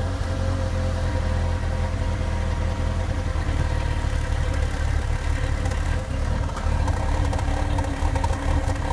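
1996 MGF 1.8 MPI's Rover K-series four-cylinder engine idling, with an uneven low note.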